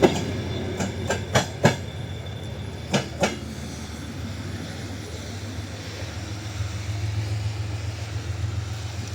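Passenger train wheels clacking over rail joints, several clacks in the first three seconds, then a steady low rumble as the TE33AC diesel-hauled train moves away.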